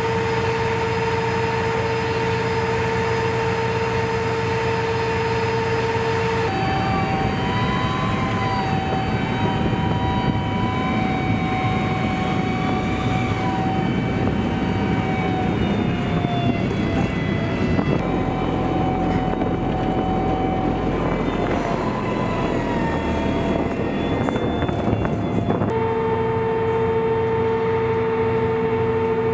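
M1 Abrams tanks' gas turbine engines running with a steady high whine over a low rumble. The whine changes pitch abruptly a few times, wavering in the middle stretch.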